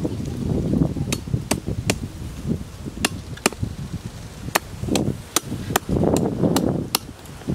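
Hand blade chopping at wood on the ground: about a dozen sharp, irregular strikes, with duller scraping thuds between them.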